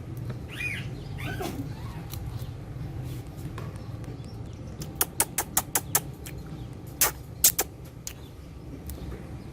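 Ringneck parrot making a couple of soft, wavering chirps, then a quick run of sharp clicks about five seconds in and three louder clicks about seven seconds in, over a low steady rumble.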